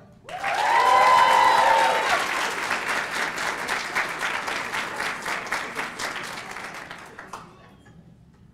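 Audience applauding, with a few high cheering shouts in the first couple of seconds; the clapping thins out and stops about seven and a half seconds in.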